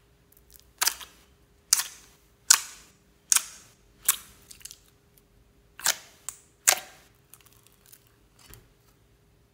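Thick glossy white slime pressed and poked by fingers, squeezing out sharp air-bubble pops about once a second, with fainter pops near the end.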